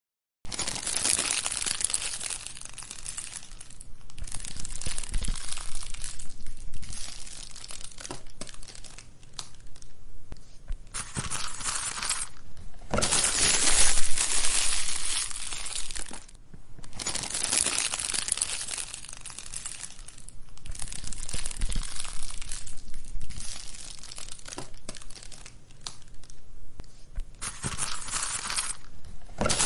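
Wood fire crackling and popping in a fireplace, a dense stream of small snaps that swells and eases every few seconds.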